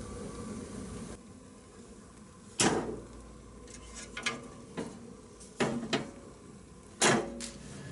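Wood fire in a fireplace hissing, then about seven sharp metal clanks and knocks as the fireplace's screen and glass doors are moved and shut; the loudest come about two and a half seconds in and near the end.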